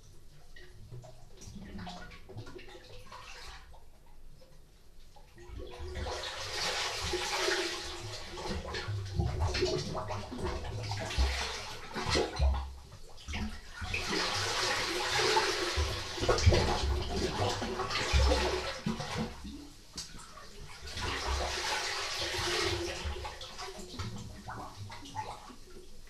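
Sea swell surging into a small rock cave at the water's edge and draining out again, the sea's 'breathing': sloshing, gurgling water with low thuds. Quiet for the first few seconds, then three long surges several seconds apart.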